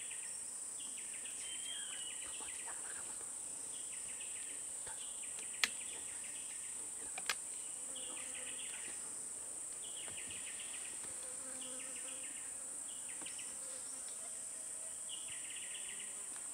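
Steady high-pitched insect drone with short chirping insect calls repeating every second or two. Two sharp clicks come about a second and a half apart, partway through, and are the loudest sounds.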